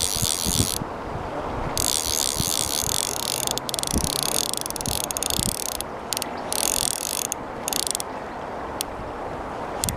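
Hardy Ultralite CC 1000 fly reel buzzing in on-and-off bursts of rapid ratchet clicks while a hooked chub is played on a 2wt rod, over steady wind rumble on the microphone.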